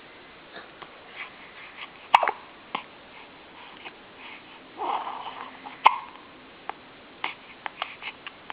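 A baby hiccuping: two sharp hiccups stand out, about two seconds in and near six seconds, with fainter short sounds between them.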